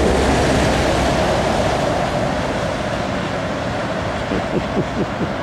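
A vehicle passing close by on the road, a rush of tyre and wind noise with a low engine rumble, loudest at first and fading as it moves away.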